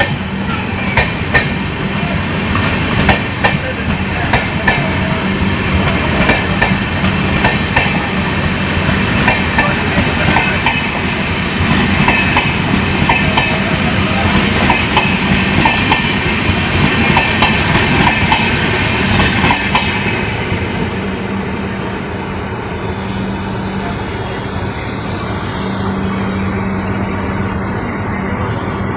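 Passenger train running along the track: a steady rumble and hum with the wheels clattering over rail joints. The clatter thins out about twenty seconds in, and the running turns smoother.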